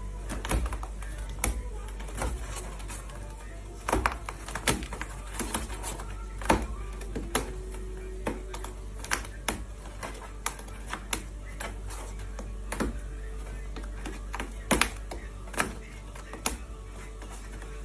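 Irregular sharp clicks and taps, a few a second with some louder ones, over a steady low hum.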